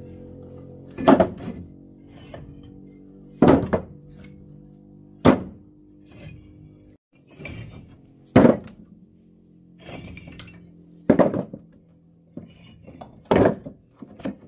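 Six heavy, sharp thunks, one every two to three seconds with fainter knocks between them, over background music.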